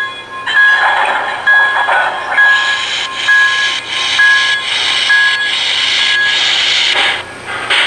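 Steam sound effects from a model New York Central streamlined steam locomotive moving slowly: chuffing about once a second with steam hiss, the hiss growing heavier in the middle and dropping away near the end.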